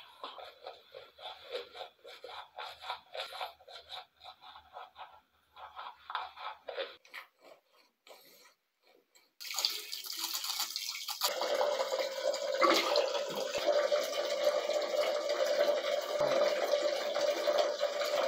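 Toothbrush scrubbing teeth in quick back-and-forth strokes for about seven seconds. After a short pause, a tap runs steadily into the bathroom sink until the end.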